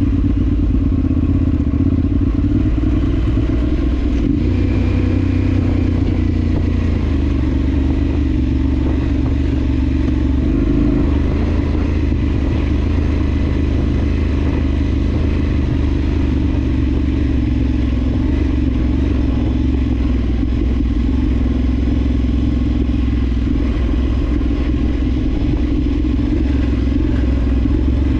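Adventure motorcycle engine running steadily while riding off-road, with the engine pitch shifting slightly a couple of times.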